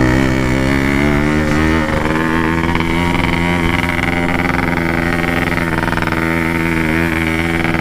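Yamaha RX-King's 135 cc two-stroke single-cylinder engine running under load while pushing a stalled Vespa scooter, its pitch climbing over the first two seconds and then holding steady.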